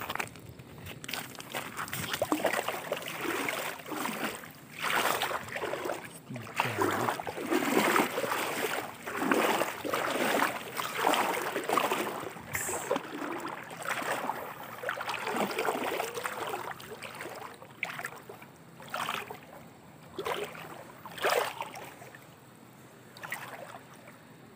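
River water sloshing and splashing in a string of irregular surges, easing off near the end, as someone moves through the shallows retrieving a net trap.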